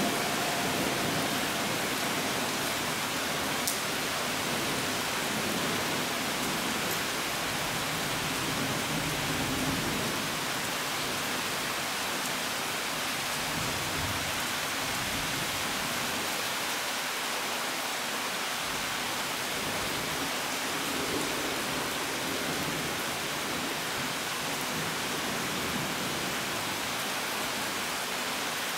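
Summer downpour: heavy rain falling steadily with a dense, even hiss, and a soft low rumble of distant thunder around the middle. A single sharp tick sounds about four seconds in.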